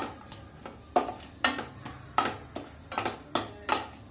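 Wooden spatula stirring cashew and almond slivers in ghee in a non-stick frying pan, scraping and knocking against the pan about twice a second.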